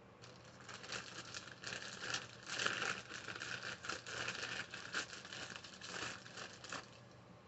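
Crinkling and rustling of a plastic bag as toy figures are rummaged out of it, an irregular run of crackles that stops near the end.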